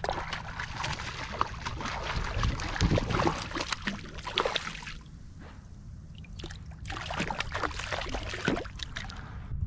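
A small hooked redfish (red drum) thrashing at the surface beside a kayak, splashing the water in scattered sharp splashes, quieter for a couple of seconds in the middle before splashing again near the end.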